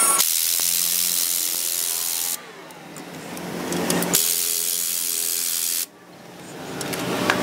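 Cordless impact wrench driving the threaded rod of a coil spring compressor on a car's front strut. It runs in two bursts of about two seconds each, and each burst cuts off abruptly.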